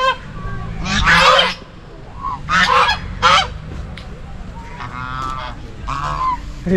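A flock of white domestic geese honking repeatedly: about six loud honks, the longest about a second in and a softer one just past the middle.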